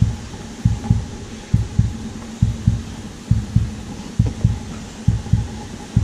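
Dull low thumps in a steady walking rhythm, in pairs about every second: footsteps jolting a handheld camera on a gimbal, over a faint steady hum.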